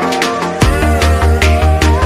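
Electronic background music with a steady drum beat; a deep, pulsing bass comes in about half a second in.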